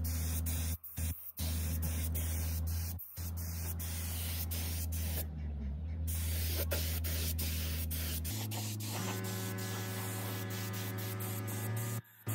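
Steady hiss of a spray tool over the low, steady hum of a motor, broken by several abrupt cuts. About eight seconds in, the hum changes to a different steady drone with a stack of evenly spaced tones.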